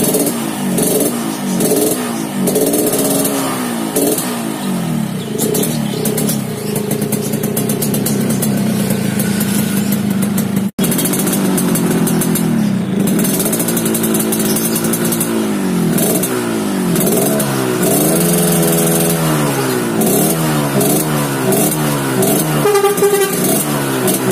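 Yamaha RX-King two-stroke single-cylinder motorcycle revving in repeated throttle blips, its pitch swinging up and down about once a second, with a short steadier stretch near the middle. It runs through its stock, un-hollowed exhaust fitted with a modified baffle filter, on a rich carburettor setting.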